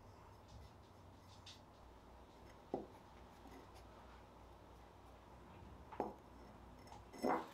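Faint paintbrush strokes on a small ceramic bell, with a few short soft knocks as the bell is handled and set down on a wooden tabletop: one a little under three seconds in, one about six seconds in, and a louder one near the end.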